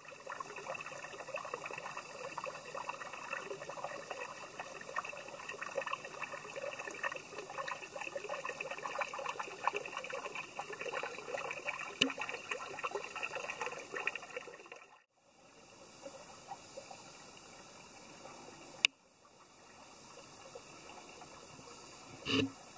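Small woodland brook trickling and babbling over mossy rocks: a busy, close patter for about fifteen seconds, then a softer steady rush after two abrupt breaks. A short knock sounds near the end.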